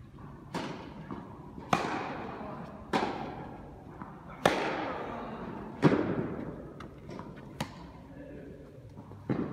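Tennis rally: racket strikes on the ball, a sharp pop about every one and a half seconds, each echoing through the large indoor hall, with softer knocks between.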